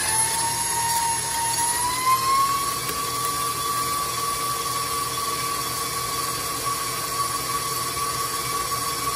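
Electric tilt-head stand mixer running, its flat beater working a thick butter-and-sugar batter. The motor's whine steps up in pitch about two seconds in as the speed is raised, then runs steady.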